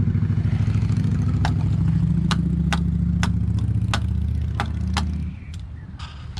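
Yamaha outboard motor idling steadily, with sharp clicks about twice a second from a socket ratchet; the engine drops away a little after five seconds. By the owner's account the motor is pumping no cooling water and overheating.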